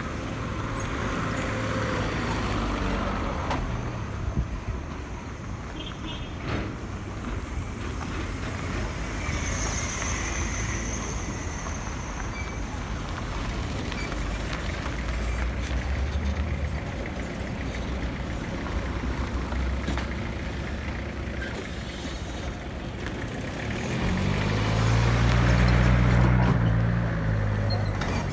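Road traffic: steady engine and tyre rumble from motor vehicles, with one louder vehicle engine passing close near the end, its pitch rising and falling.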